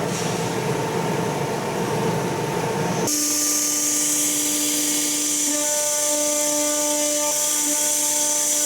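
CNC router spindle milling aluminum: a steady mechanical cutting sound. About three seconds in it changes abruptly to a high hiss with a steady whine of several tones.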